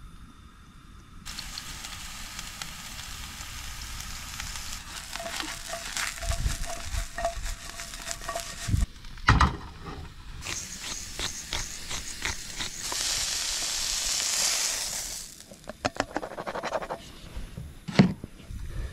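Sliced mushrooms sizzling in hot oil in a non-stick frying pan on a portable gas stove, with scattered knocks and clacks of the pan and utensils. The sizzle swells loudest about two-thirds of the way through.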